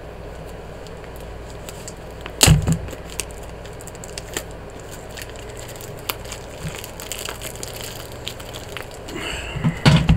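A package being handled and opened by hand: scattered clicks and crackles, with a sharp crack about two and a half seconds in. Rustling and a knock near the end, over a low steady hum.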